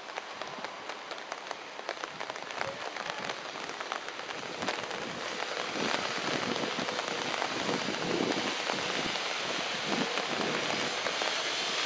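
Steady rain falling, with many small drops pattering close by. It grows louder about halfway through.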